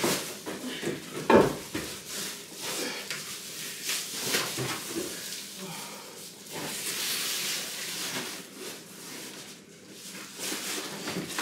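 A large wooden wall panel being handled and fitted against the wall: scraping and rustling of wood, with several knocks and one loud knock about a second in.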